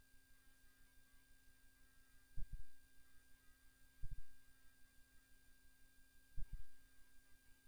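Steady high electrical whine and low hum on the audio line, with three short, dull low thumps spread through.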